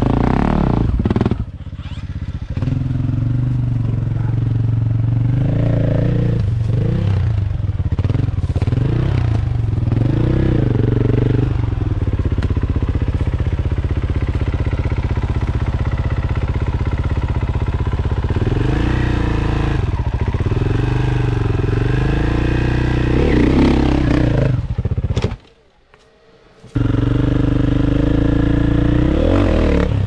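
Enduro dirt bike engine revving up and down repeatedly. About 25 seconds in, the sound drops away abruptly for a second or so, then the engine comes back.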